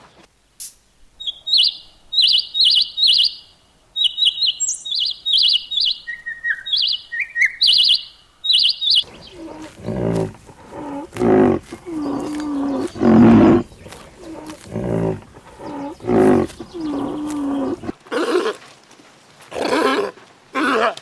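Bird chirping in quick repeated groups of high notes for the first eight seconds or so. After that comes a series of low, pitched calls from a larger animal, some short and some held with a wavering tone.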